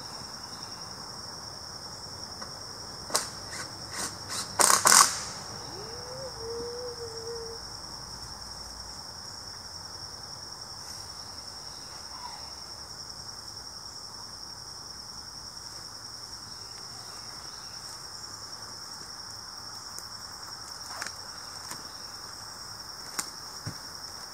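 Steady high-pitched drone of insects in the woods, with a cluster of sharp knocks and clatter about three to five seconds in and a few faint clicks near the end.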